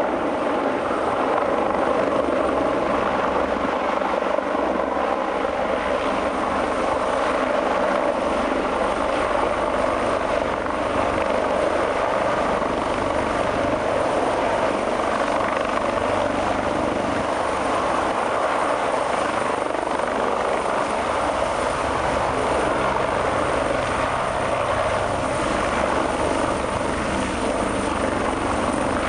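Large twin-engine offshore helicopter hovering low over the ground, its rotors and turbines making a steady, even noise.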